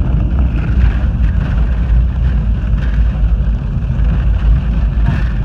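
Loud, steady cabin rumble of a BAe 146 jet airliner rolling down the runway just after touchdown: engine noise and wheels on the runway, heard from inside the cabin.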